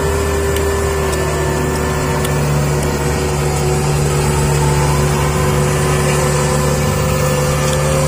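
An engine running steadily at an even speed, loud and close, with no rise or fall in pitch.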